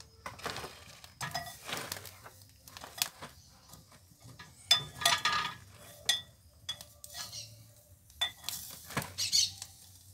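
Metal clinks, knocks and scrapes from handling a hinged lead-sinker mould, pliers and a small metal pot of molten lead, irregular, with a few sharper clinks about halfway through and near the end.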